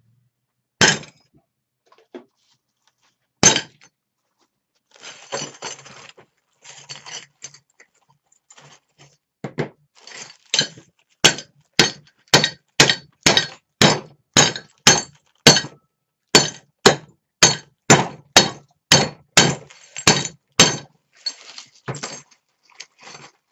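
Hammer blows smashing a white ceramic coffee cup inside a plastic bag into small chips to use as boiling stones. Two single strikes, a few seconds of crunching shards, then a fast run of strikes, about two a second, that tails off into light clinks near the end.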